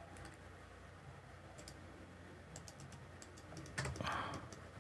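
Faint computer keyboard and mouse clicks, a few light keystrokes at a time, as the Trim command is typed and lines are picked. A brief louder rush of noise comes near the end.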